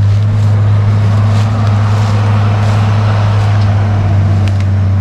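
A heavy engine running steadily at an even speed, a deep continuous drone with no change in pitch.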